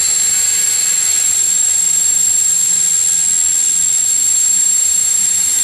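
Hexacopter's six electric motors and propellers running steadily in a hover: an even, high whir with a thin steady whine.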